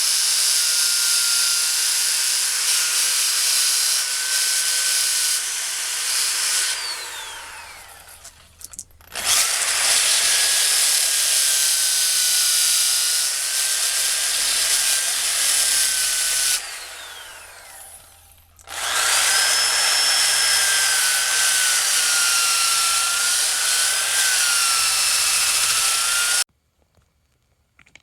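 Small electric sanding tool running against wood, a high whine that wavers in pitch. It is switched off and winds down twice, starting up again each time, and stops suddenly near the end.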